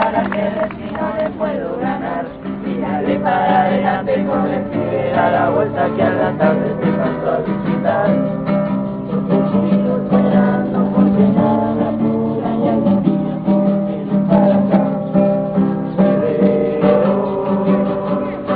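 Singing with acoustic guitar accompaniment.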